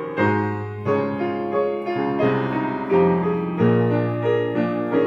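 Piano being played: chords and single notes struck about every two-thirds of a second, each ringing on under the next in a slow, even melody.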